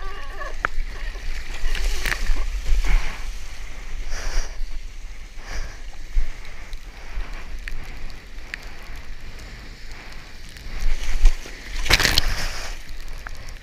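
Water splashing and sloshing against a surfboard as it is paddled through chop, with a steady low rumble of wind on the microphone. Near the end a loud rush of breaking whitewater washes over the board.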